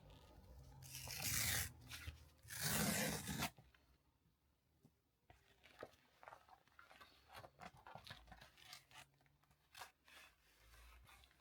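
A delivery package being torn open by hand: two long ripping sounds in the first few seconds, then light crinkling and rustling of the packaging.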